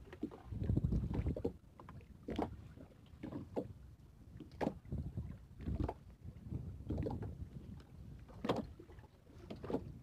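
A fishing net being worked by hand over the side of a small boat at sea: scattered sharp knocks and rustles against the hull, over an uneven low rumble of wind on the microphone. The loudest knock comes about two thirds of the way through.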